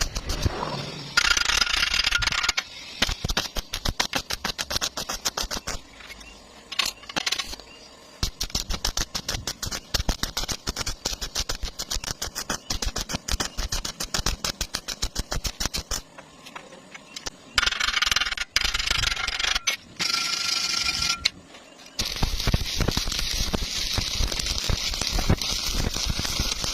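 Stick welding arc crackling and sizzling in several runs, with a steady hiss that comes and goes and the longest unbroken sizzle in the last few seconds.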